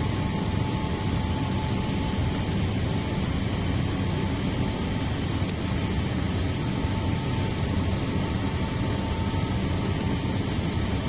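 Steady low rumble of background noise, unchanging in level, with a faint thin hum above it.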